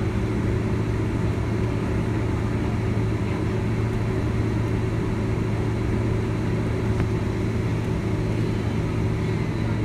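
Steady low drone of a Boeing 767-300ER taxiing at idle power, heard inside the passenger cabin, with a few faint steady tones above the hum.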